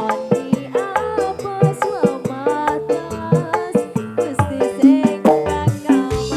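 Live band music played through a PA system: quick hand-drum strikes under pitched melodic lines.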